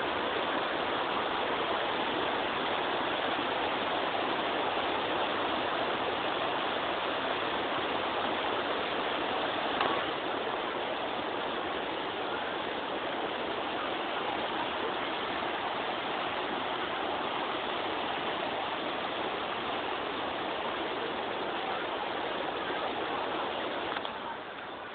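Waterfall: the steady rush of falling water, with a short knock about ten seconds in and the level easing slightly near the end.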